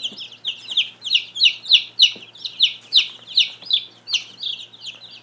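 A brood of young chicks peeping: many short, high cheeps, several a second and overlapping one another.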